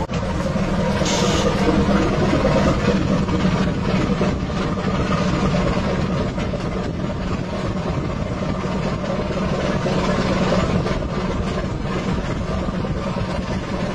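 Ship's engine droning steadily, a low hum that holds level throughout, with a brief hiss about a second in.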